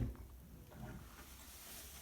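Quiet room tone, with the fading tail of a knock at the very start and a faint small tap about a second in.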